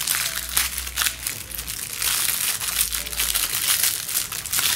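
Small clear plastic packet crinkling and crackling as it is torn open by hand and the keychain puzzle is pulled out, a dense unbroken run of crackles.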